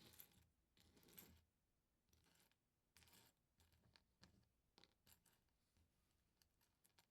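LEGO pieces being handled and pressed together: faint small plastic clicks and rustles. Two longer rustles come in the first second and a half, then quicker, sharper clicks follow.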